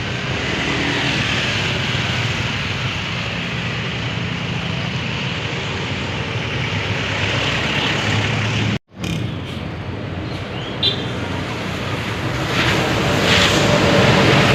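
Road traffic running past: engine rumble and tyre noise from passing vehicles, broken by a brief dropout about nine seconds in and growing louder near the end.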